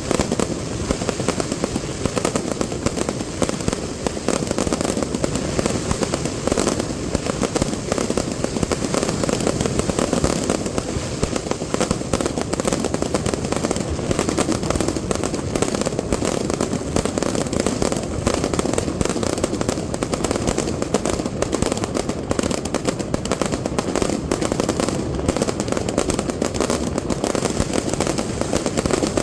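Fireworks display: a dense, unbroken run of rapid bangs and crackles.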